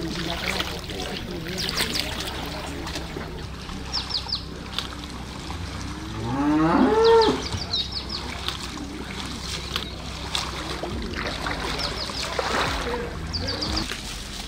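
A cow mooing once: one long call, about six seconds in, that rises and then falls in pitch.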